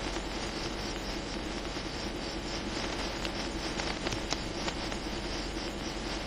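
Steady roadside background at a night traffic stop: the low hum of idling cars with a fluttering, insect-like chirring above it. A few faint clicks come about three to four and a half seconds in.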